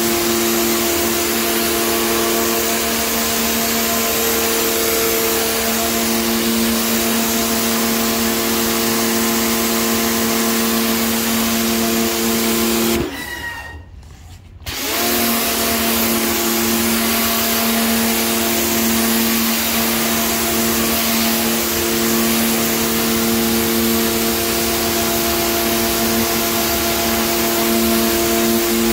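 Electric pressure washer running, its motor and pump humming under the hiss of the spray jet on the tiles. About halfway through it cuts out as the trigger is released, then spins back up a second and a half later.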